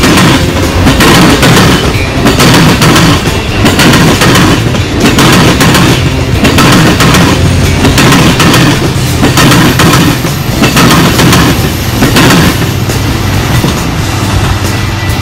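Passenger train cars rolling past close by: a loud, steady rumble with repeated clacks of the wheels over rail joints, easing off slightly near the end.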